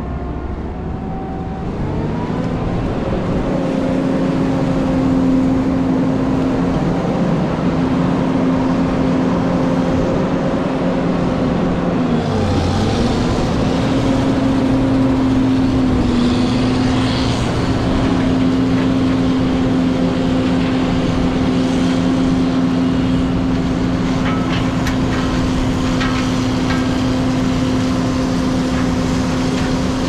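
John Deere 9500 combine running while harvesting corn: a loud, steady engine and machinery hum whose pitch dips briefly twice near the middle.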